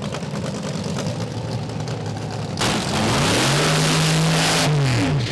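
Top alcohol dragster engine idling, then going to full throttle about two and a half seconds in, as in a burnout. The revs climb, hold steady for about a second and a half, then fall away as the throttle is released near the end.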